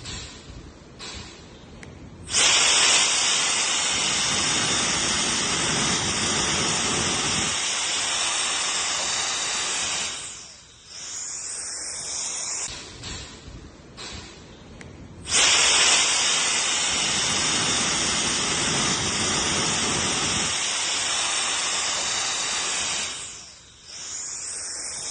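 Handheld brushless-motor turbo jet blower switched on, running with a loud rush of air and a steady high motor whine, then falling to a lower level before stopping; this happens twice.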